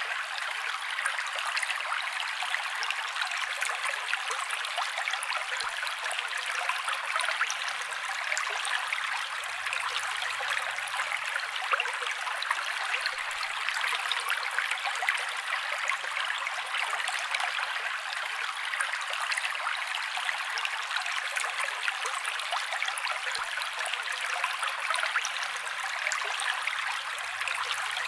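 Fountain water falling and splashing steadily, a continuous patter of small splashes.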